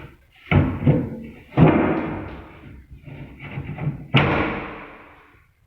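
Kitchen cabinet fronts being banged shut: three loud slams, about half a second, a second and a half and four seconds in, each ringing on briefly, with lighter knocks between them.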